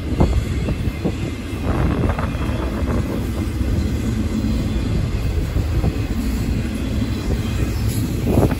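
Double-stack container freight train rolling past, a steady low rumble of its cars' wheels on the rails, with a few brief louder rushes about two seconds in and near the end.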